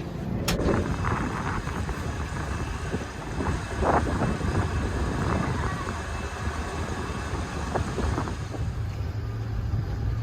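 Tour boat's motor running steadily under way, with wind buffeting the microphone.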